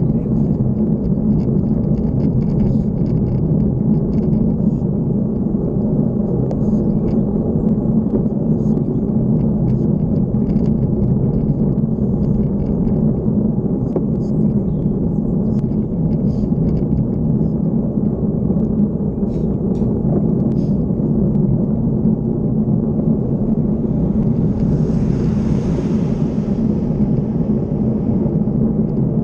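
Steady wind and road rumble on the microphone of a bike-mounted camera riding along at speed. About 25 seconds in, a brief hiss rises and fades.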